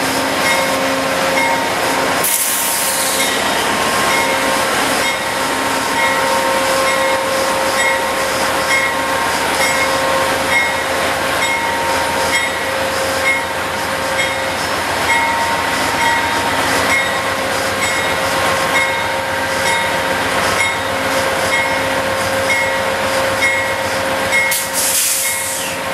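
Amtrak GE P42DC diesel locomotive and Pacific Surfliner bilevel cars rolling past, with a bell ringing in a steady repeating rhythm a little over once a second. Short bursts of air hiss come about two seconds in and again near the end.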